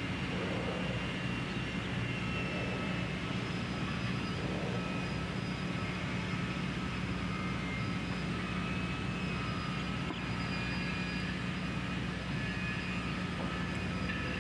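A steady low mechanical drone, with faint thin whining tones held above it that drift slightly in pitch.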